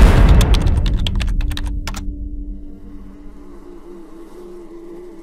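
A deep rumble dying away over about three seconds, crackled through by a rapid run of sharp clicks in its first two seconds, then a faint steady buzz with a slightly wavering pitch.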